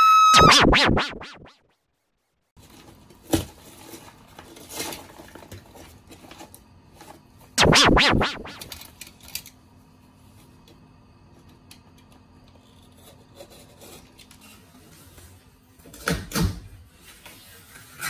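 A short rising electronic tone at the start, then faint scraping and rubbing at a damaged drywall patch over a low steady hum, with louder short bursts about eight and sixteen seconds in.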